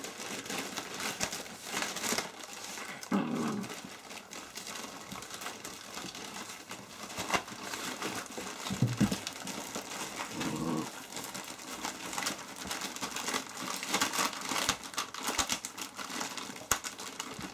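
A plastic bag of dried horse lung crinkling and crackling as two Dalmatian puppies bite and paw at it, trying to tear it open. A few short low-pitched puppy sounds come about three, nine and ten seconds in.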